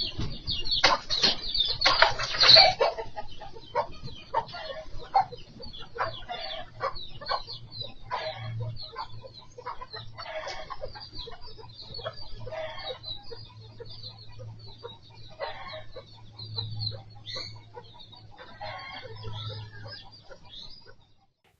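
Birds squawking and clucking in a rapid series of short calls, loudest and busiest in the first three seconds and thinning out after, over a steady low hum.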